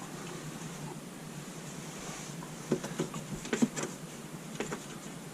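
A handful of light clicks and taps from small parts being handled, clustered around the middle, over a steady faint background noise.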